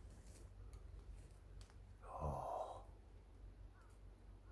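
Quiet, with a single breathy sigh from a person about two seconds in, lasting under a second.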